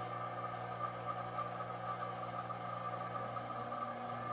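Dyna Myte 2800 CNC milling machine running a roughing pass in aluminum: the spindle and end mill make a steady hum and whine as they cut. The low hum shifts a little about three seconds in.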